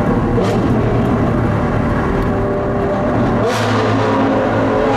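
Alfa Romeo 4C's 1.7-litre turbo four-cylinder engine running under load, heard from inside its cabin, with a change in engine note and a brief hiss about three and a half seconds in.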